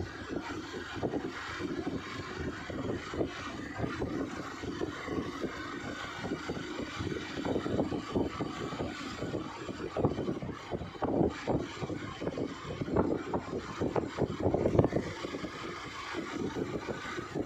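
Rumble of a moving vehicle, heard from the vehicle itself, with wind gusting unevenly on the microphone.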